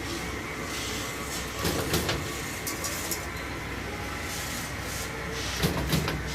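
Steady machine hum in a metalworking shop, with short metal knocks and clinks coming in two pairs, one pair about a third of the way in and another near the end.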